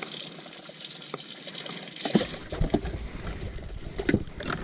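Water splashing and trickling in a bass boat's livewell, then a run of knocks and thumps from about two seconds in, the loudest first, as the livewell lid is shut and handled.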